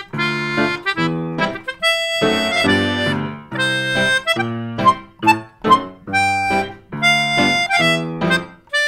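Intro jingle music: a lively tune of short, separated chords and notes, a few a second, with a few longer held chords in between.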